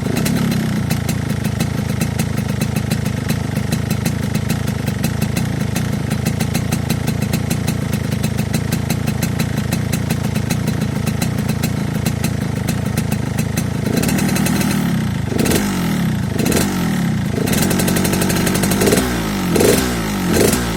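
Yamaha RX-King two-stroke single-cylinder engine with a bored-out 'bobokan' muffler, idling steadily with a snoring (ngorok) rasp. About two-thirds of the way through, the throttle is blipped several times, the revs rising and falling.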